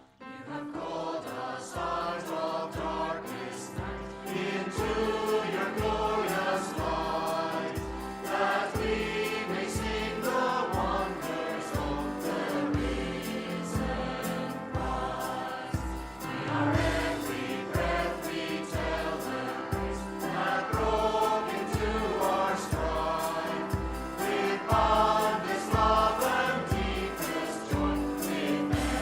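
A church worship group singing together, backed by a praise band, over a steady low beat.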